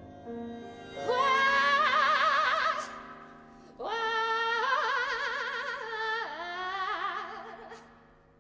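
Operatic soprano singing two long, wide-vibrato phrases over quiet held notes from a small chamber ensemble; the second phrase steps down in pitch partway through and fades near the end.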